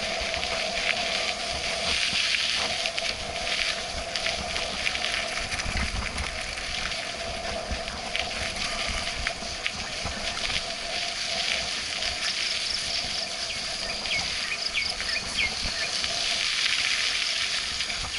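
Mountain bike ridden fast along a dirt trail: a steady rush of tyre noise and wind on the microphone, with small rattles and clicks from the bike and a few short high chirps near the end.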